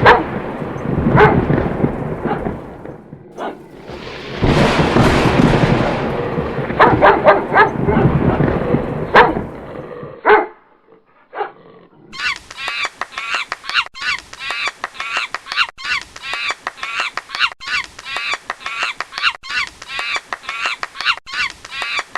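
A dog barking with irregular loud calls. After a short pause, waterfowl give a fast, steady run of repeated honking calls, several a second, until the end.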